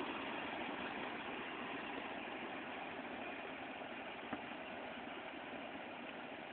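A four-wheel-drive SUV's engine running steadily at low revs, slowly fading, with one faint click about four seconds in.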